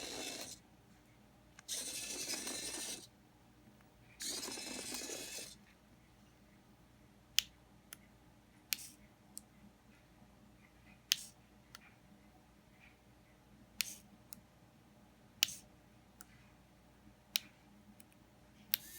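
Small electric servo motors on a toy robot car whirring in two runs of about a second each, followed by scattered sharp plastic clicks every second or two.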